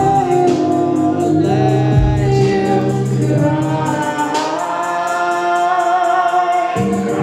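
A woman singing long, drawn-out notes into a microphone over an electronic backing track, heard live through the PA. The low bass drops out about four seconds in and returns near the end, leaving the voice over a thinner backing.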